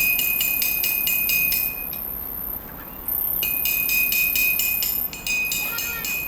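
Crickets chirping: a high-pitched call pulsed about five times a second, breaking off for a second or so about two seconds in, over a steady, very high-pitched insect trill.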